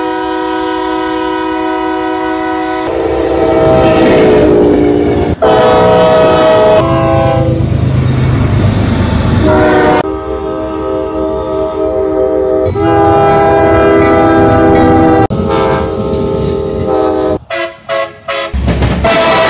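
Locomotive air horns sounding, several different horns in turn, each a loud steady chord of several notes, the chord switching abruptly every few seconds. Near the end come a few short blasts.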